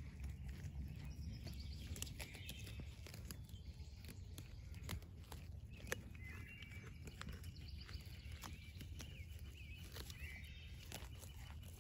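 Pygmy goats grazing close by: scattered sharp clicks and tearing as they crop grass and dandelions, the sharpest about six seconds in. Under them runs a low steady rumble, and faint short chirps of birdsong come and go.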